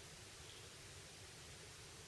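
Near silence: steady faint hiss and room tone.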